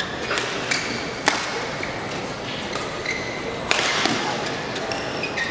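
Badminton racket strikes on a shuttlecock during a rally: a few sharp cracks, the loudest about a second in and another near the end, with short squeaks of shoes on the court floor, echoing in a large hall.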